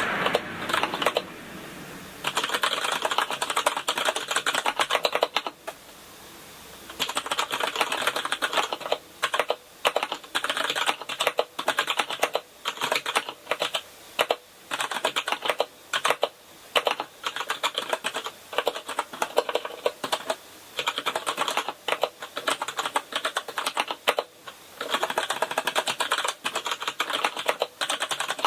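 Typing on a Kinesis Advantage ergonomic keyboard with Cherry MX Brown tactile switches: a fast, steady run of key clicks, with two short pauses.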